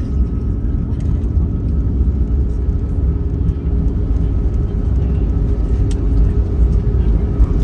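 Airbus A321neo cabin noise: a steady low rumble from the engines and airframe as the airliner rolls on the ground after landing, with a faint steady whine above it.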